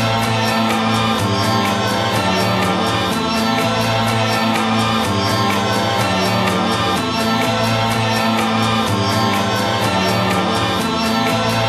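Background music with long held low notes and a steady ticking beat, about four ticks a second.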